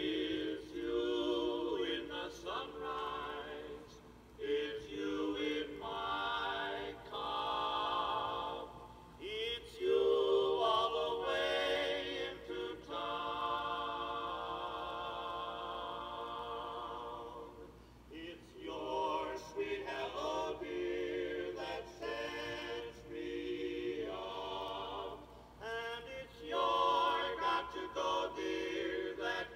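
Male barbershop quartet singing in close harmony, from a 45 rpm vinyl record playing on a Crosley suitcase record player and heard through its small built-in speaker, with thin sound and little bass.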